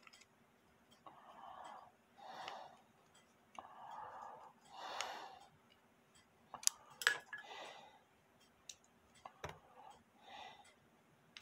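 Slow, heavy breathing close to the microphone, with a few small metallic clicks and one sharp clink a little past halfway, as a steel tool touches the brass clock movement while its strike rack is being refitted.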